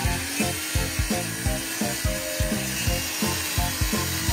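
Background music with a quick steady beat, the loudest sound, over a handheld electric circular saw cutting through a sheet of 12 mm plywood.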